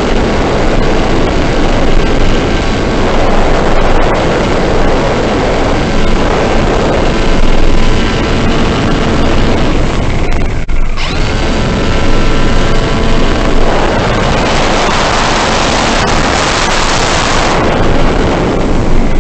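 Wind rushing over the onboard microphone of a radio-controlled airplane in flight, with the faint whine of its motor and propeller underneath. The rush drops out briefly about ten seconds in and turns louder and hissier for a few seconds past the middle.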